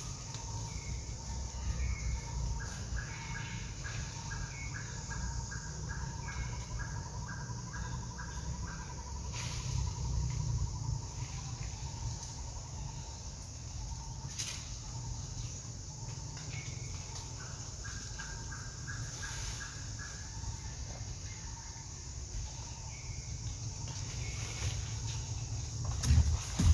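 Outdoor bird calls: a bird repeating a quick chirp about three times a second, in two runs of several seconds, with other short calls between, over a steady high hiss and a low rumble. A louder knock comes near the end.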